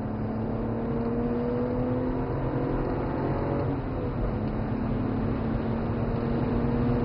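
BMW 135i's twin-turbo straight-six under hard acceleration, heard from inside the cabin: the engine note climbs steadily, drops at an upshift about four seconds in, then climbs again, over steady road and tyre noise.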